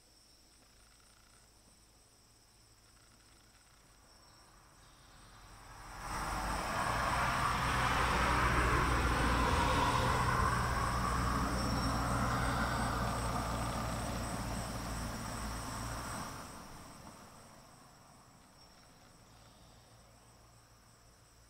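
A passing vehicle: a broad engine-and-road noise with a low hum swells in about six seconds in, holds for about ten seconds, then fades away. A steady high-pitched insect chorus runs underneath.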